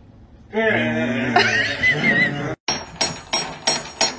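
A dog's drawn-out howl, wavering in pitch, lasting about two seconds. Then, after an abrupt cut, sharp knocks start, evenly spaced about three a second.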